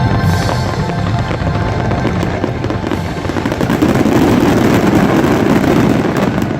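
Fireworks finale: many rapid crackling bursts over loud show music, the barrage thickening and growing loudest about four seconds in.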